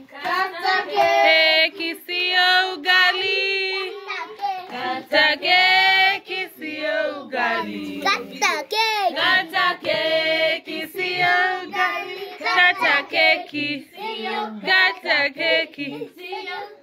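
Children singing a birthday song together in high voices.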